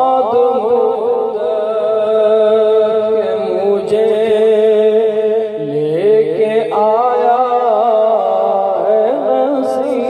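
A naat, an Urdu devotional poem in praise of the Prophet, chanted by a solo voice in long, wavering held notes.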